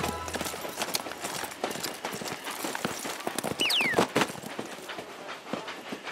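Cartoon sound effect of ponies' hooves clip-clopping, irregular knocks throughout. About four seconds in, a short high-pitched call slides sharply downward.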